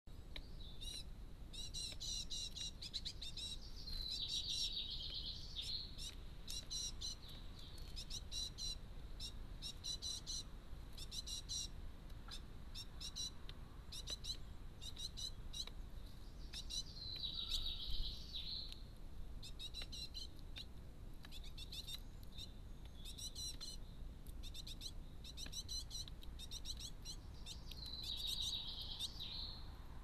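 Songbird singing: bursts of rapid, high chirps and short trills, repeated throughout with a few denser trilled phrases.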